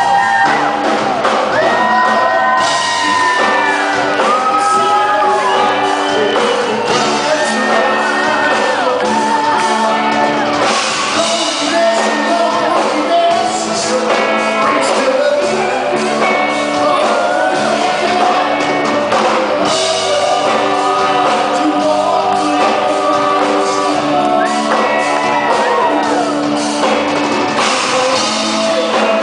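A man sings live into a handheld microphone over loud amplified backing music, holding long wavering notes.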